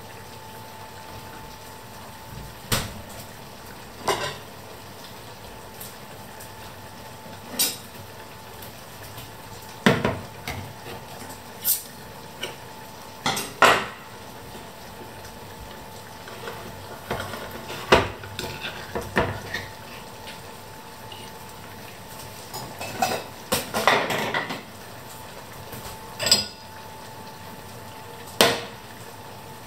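Kitchen clatter at a stove: a dozen or so separate metal knocks and clinks of pots, lids and utensils, including a tin can set down on the glass hob. A longer stretch of scraping clatter a little past the middle fits the can's ring-pull lid being peeled open.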